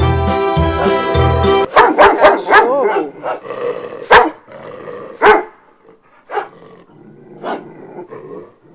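Dog barking: a quick run of barks, then single barks about a second apart.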